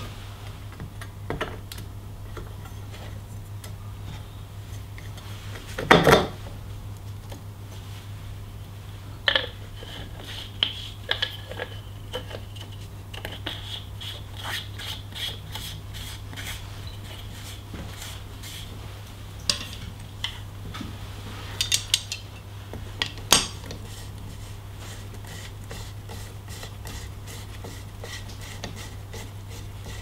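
Metal clinks and knocks as a Shimano crankset's spindle goes through a new BB86 bottom bracket and the non-drive crank arm is fitted onto it: scattered sharp clicks, the loudest knock about six seconds in. A low steady hum runs underneath.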